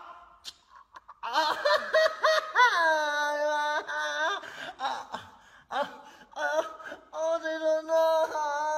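A stretched rubber band blown through like a reed, giving squealing tones that bend up and down in pitch in short phrases, with a longer held tone near the end.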